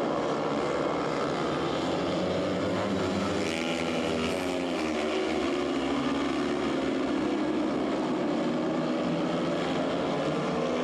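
Four speedway motorcycles racing together, their single-cylinder 500 cc engines blending into a steady, loud drone of overlapping notes that shift in pitch as the riders go round the track.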